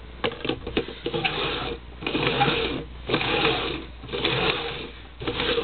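Red plastic party cups being slid and shuffled on a wooden floor: a few quick clicks as they are set down, then about four rough scraping strokes, roughly one a second.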